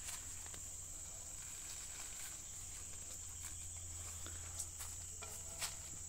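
Steady high-pitched insect drone, with a few faint taps and rustles of footsteps on the ground late on.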